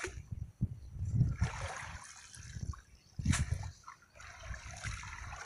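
Shallow pond water sloshing and trickling around a wet cast net as it is gathered and held by hand, with one sharper splash about three seconds in.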